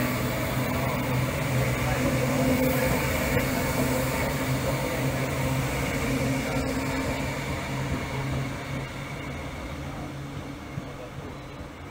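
Electric suburban train moving past the platform: a steady electric hum with wheel-on-rail noise that fades away from about eight seconds in as the last car draws off.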